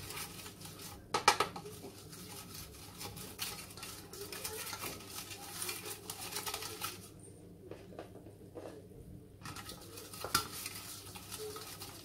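Spatula scraping and tapping on a stainless steel plate as ghee is spread over it, a run of light scrapes and clicks with a sharp knock about a second in and another near the end, easing off for a couple of seconds in between.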